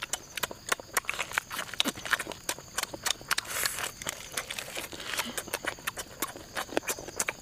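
Someone chewing and lip-smacking on roasted goat meat: an irregular run of mouth clicks and smacks, several a second.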